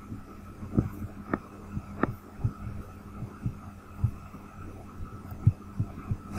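Irregular soft clicks and thumps from a computer mouse being clicked and its scroll wheel turned, over a steady electrical hum.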